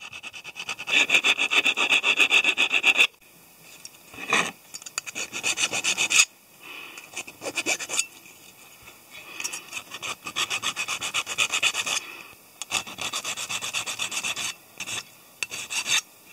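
Soldered brass sheet-metal part rubbed back and forth against a flat metal file, rasping down the solder seams in quick short strokes. The filing comes in runs of a few seconds with short pauses between them.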